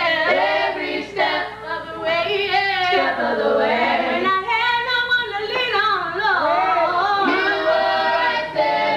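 Small group of women singing a gospel song together, their voices sliding between notes and holding long notes.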